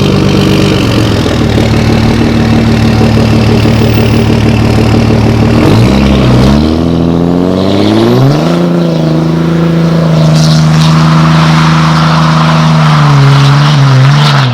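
Turbocharged inline-six Cummins diesel of a modified 760 hp Dodge Ram running hard through a 6-inch exhaust. It holds a steady pitch, drops about six seconds in, climbs over the next two seconds and then holds higher, with a rushing hiss joining from about ten seconds in.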